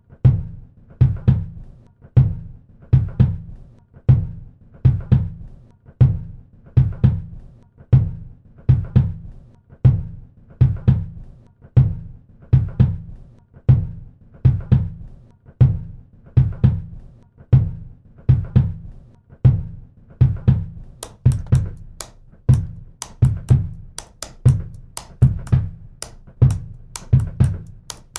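Music built on a steady drum beat: deep bass-drum thumps, about one a second, in a repeating pattern. Sharp high ticks like a hi-hat join in about three-quarters of the way through.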